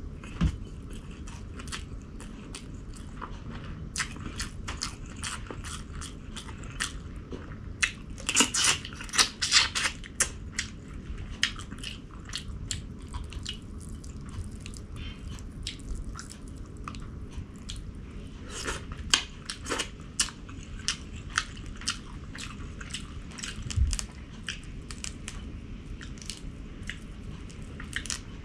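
A person chewing and biting food close to the microphone, with many sharp mouth clicks that are busiest about eight to ten seconds in.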